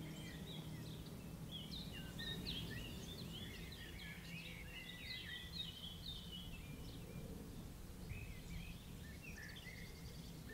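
Small birds chirping and twittering outdoors, many short quick notes, busiest in the first half and thinning out later, over faint low background noise.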